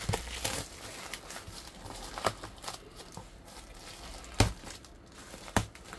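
Black plastic wrapping and packing tape being torn and peeled off a cardboard box: irregular crinkling and rustling with a few sharper knocks, the loudest about four and a half seconds in.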